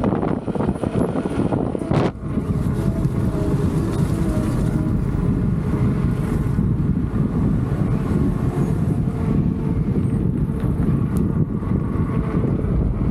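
Tyre of a Leaperkim Patton electric unicycle rolling at speed, a steady low rushing noise, mixed with wind buffeting the microphone. The noise dips briefly about two seconds in.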